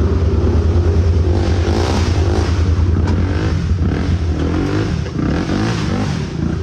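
Off-road vehicle's engine running loud and steady under load, its pitch rising and falling as it is revved.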